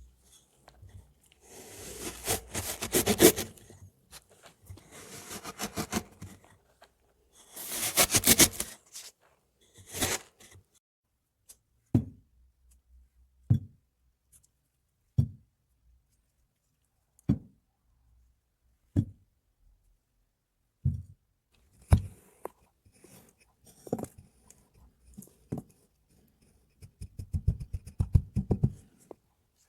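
Kinetic sand being cut and squished with gritty, crunchy scraping in several passes, then a run of single sharp knocks spaced about every one and a half to two seconds, and a quick crunchy stretch near the end.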